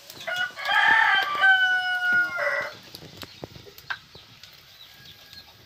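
A rooster crowing once: a single cock-a-doodle-doo about two and a half seconds long, with a long held note before a short final drop.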